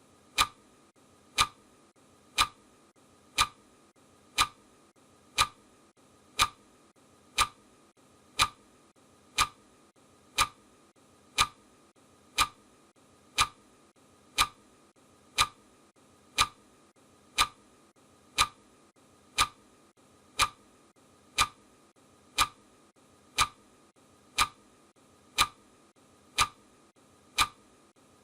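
Clock ticking sound effect, one sharp tick per second, steady and even.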